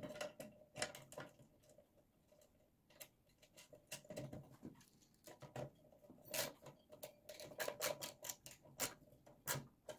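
Faint, irregular small clicks and taps of metal parts handled by hand: a bench grinder's spark guard being fitted and its screws put back in and turned.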